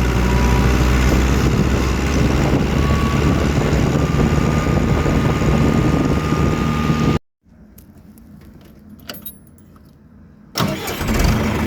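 John Deere 2355 tractor's diesel engine running steadily with a light rattle. About seven seconds in the sound cuts off abruptly to a quiet stretch with a few faint clicks, and the engine sound returns near the end.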